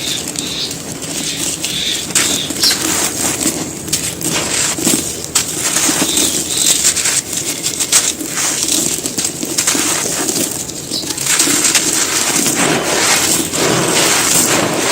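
Dry handmade cement cups and balls crumbling: continuous gritty crunching, with many quick crackles and small cracks as the pieces break up.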